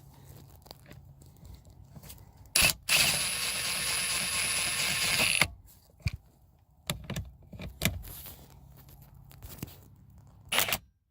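Impact wrench running for about two and a half seconds, driving the steering wheel's big centre bolt home. Handling clicks and knocks come before and after it.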